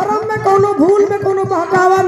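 A woman singing a folk-style song, holding long notes that bend and waver, with a hand drum beating steadily underneath.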